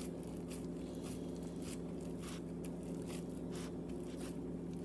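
Gloved hands patting and pressing raw ground-beef meatloaf mixture down into a metal loaf pan: soft, irregular squishing pats a few times a second, over a steady low hum.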